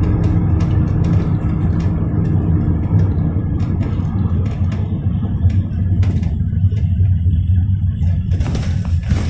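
Cabin of a GAZelle Next minibus under way: its Evotech engine runs with a steady low drone under road noise, with scattered light rattling clicks.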